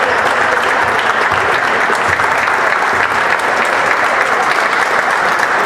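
Crowd applauding steadily in a basketball arena, a tribute applause while play is deliberately held up.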